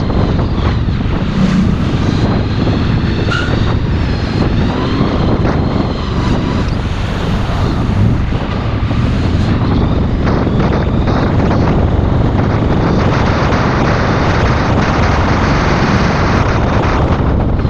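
Honda VFR800 motorcycle's V4 engine running as it rides between lanes of traffic, mixed with steady wind rush on the helmet-camera microphone.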